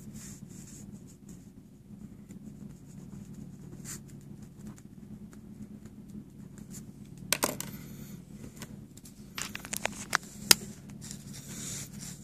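Ballpoint pen writing on a paper worksheet: faint scratching strokes, with a few sharp clicks and knocks of handling later on, over a steady low hum.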